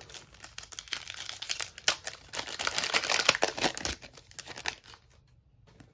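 Foil wrapper of an NBA Hoops trading-card pack being torn open and peeled back by hand: a dense run of crinkling and crackling, loudest in the middle, that stops about five seconds in.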